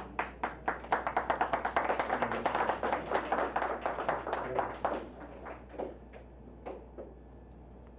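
A small audience applauding: a few seconds of brisk, dense clapping that thins to a few scattered claps and stops near the end.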